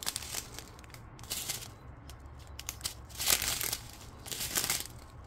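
Thin plastic zip bags of diamond-painting drills crinkling as they are handled, in short rustles every second or so.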